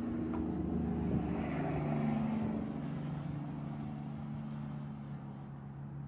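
A passing engine's steady low hum, rising to its loudest about two seconds in and then slowly fading.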